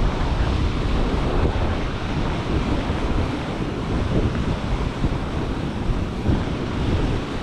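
Strong wind buffeting the microphone, a heavy low rumble that rises and falls in gusts.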